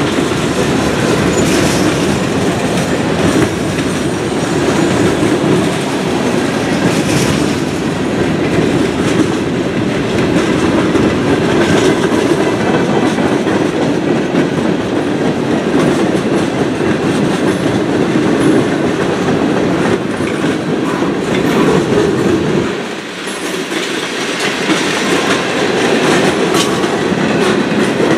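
Mixed freight train of boxcars, covered hoppers and tank cars rolling past, its steel wheels on the rails making a steady noise with repeated clicks over the rail joints. The noise dips briefly about three quarters of the way through.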